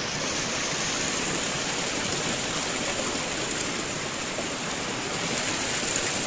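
Water gushing steadily from a plastic pipe spout and splashing onto rocks, running over a person's face and hands held under the flow.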